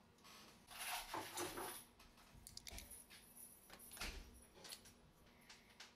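Faint metal scraping and a few light clicks as pliers grip and work the valve out of a Columbia automatic drywall taper's head. The scraping is loudest about a second in, followed by scattered small clicks.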